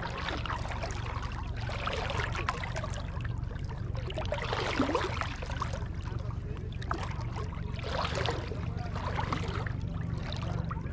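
Shallow seawater sloshing and splashing close by in irregular surges, the strongest about halfway through, over a steady low hum.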